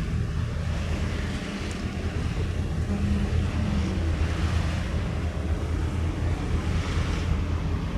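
Steady low drone of a passenger ship's engine under the rush of wind and water, with wind buffeting the microphone.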